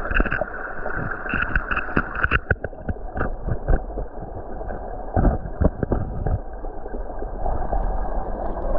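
Creek water running steadily, with irregular knocks and rustles close to the microphone from hands handling things.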